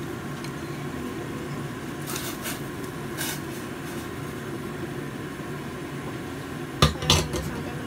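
Steady rushing noise of a gas burner under a stainless steel pot of boiling water, as raw meat pieces are pushed in from a glass bowl with chopsticks and stirred, with some brief scraping. Two sharp knocks just before the end.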